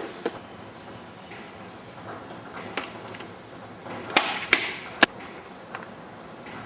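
Workshop tools being handled: a few sharp clicks and knocks, three of them close together about four to five seconds in, over a steady low hiss.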